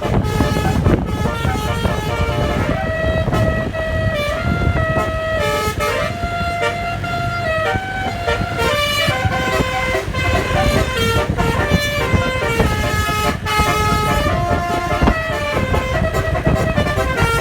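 Bus basuri horn, a multi-tone electric horn, playing a melody as a string of held notes that step in pitch every half second or so, over a low rumble of traffic.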